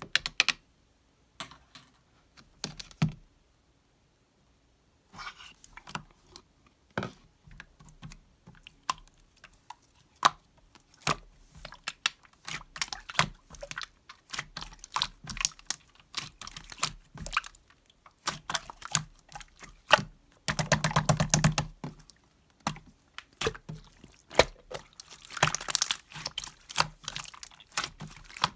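Irregular sharp clicks and taps in uneven runs, with a short pause a few seconds in and a dense flurry of rapid clicks about twenty seconds in.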